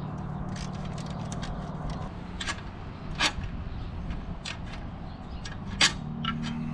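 A few sharp metal clicks and clinks, scattered and irregular, the loudest near the end, as the back wheel is worked off a hand-push garden seeder. A steady low engine hum runs underneath.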